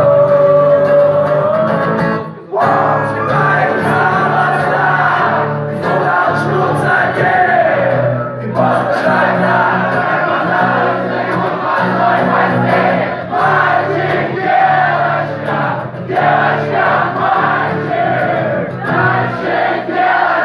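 Live band music playing a loud, dense passage with no lead vocal, with a brief break about two seconds in, and audience voices mixed in.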